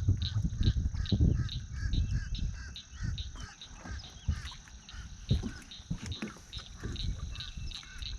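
Animal calls outdoors: a fast series of high chirps repeating about four times a second, with other warbling chirps lower down, over a low rumble like wind on the microphone.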